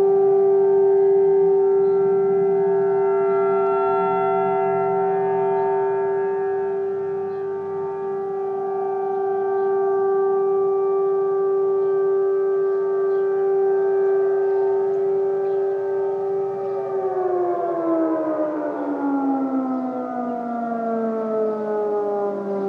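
Several outdoor warning sirens, Federal Signal 2001 and 1003 models among them, sounding a steady alert tone together. About 17 seconds in they begin winding down, their pitches falling at different rates as the three-minute alert cycle ends.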